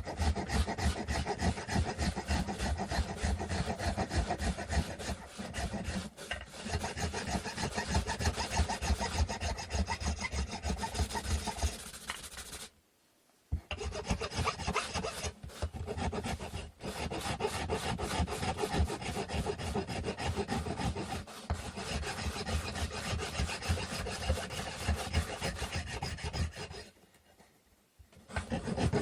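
A hand tool working a wooden stick in rapid back-and-forth rasping strokes. It stops briefly about halfway through and again just before the end.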